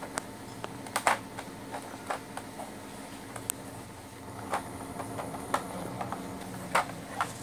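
Clear plastic blister tray crackling and clicking as an action figure is pried out of it by hand: scattered sharp clicks, the loudest about a second in and near the end.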